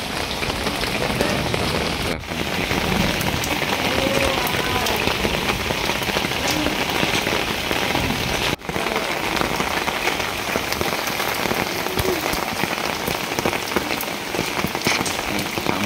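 Steady rain falling onto standing floodwater, a dense, even splashing patter.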